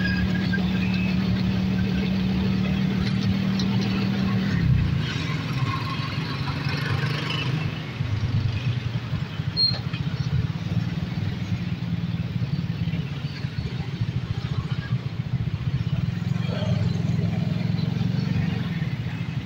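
Small motorcycle engine running steadily underway, with its note changing about five seconds in, over street traffic noise.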